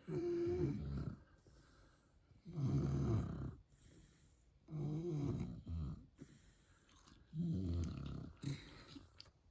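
A French Bulldog snoring: four long snoring breaths, about one every two and a half seconds, with quiet between them.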